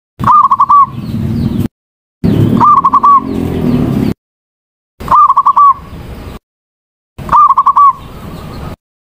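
Female zebra dove (perkutut) giving its short cooing call, a quick run of three or four notes, four times. Each call is a separate snippet with some background noise after it, cut off abruptly with silence in between.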